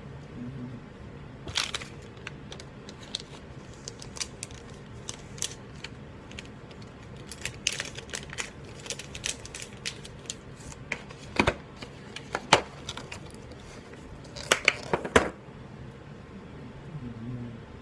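Hands handling computer parts and their packaging: irregular sharp clicks, taps and short crinkles, with the loudest cluster of clicks in the last third, stopping a few seconds before the end.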